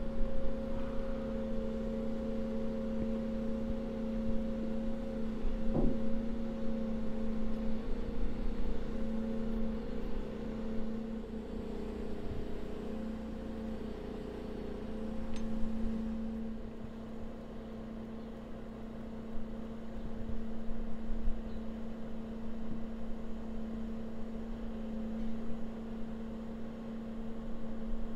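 Hydraulic boat-hauling trailer's power unit running with a steady hum of level tones as its controls lift and tilt the deck. A single light knock comes about six seconds in.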